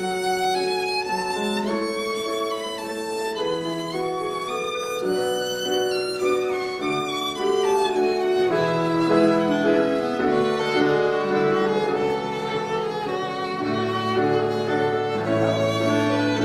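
Fiddle-led dance music for English country dancing: a fiddle plays a moving tune over sustained lower notes that change every second or two.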